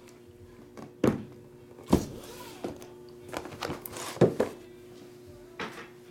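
Cardboard hobby boxes of Topps Chrome Black trading cards being lifted off a stack and set down on a table: a few sharp thunks with softer knocks and shuffles between them. A faint steady hum runs underneath.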